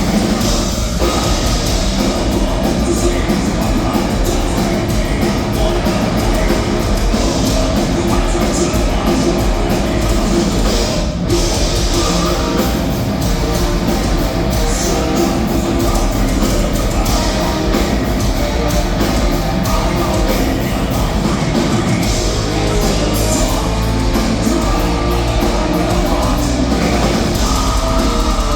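Melodic death metal played loud: heavily distorted electric guitars over a fast drum kit, with some vocals.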